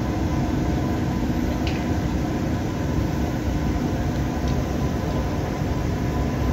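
Electric passenger train standing at the platform with its ventilation and auxiliary equipment running: a steady hum and hiss with a few constant tones.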